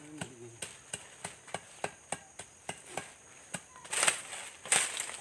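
Machete chopping at undergrowth in quick, even strokes, about three a second, which stop about two-thirds of the way through. Then come two louder rustling crashes as dry brush and fronds are dragged away.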